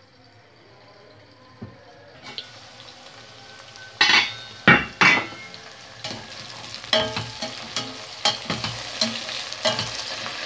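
Green peppers with tomato frying in oil in a stainless steel pot, sizzling and growing louder, while a spatula stirs and knocks against the pot. Three loud clatters come about four to five seconds in, then a run of lighter knocks and scrapes.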